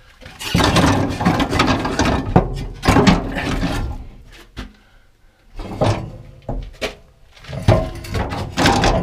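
Scraping, rustling and knocking from hands working loose exhaust parts under a car, in two spells with a short lull in the middle.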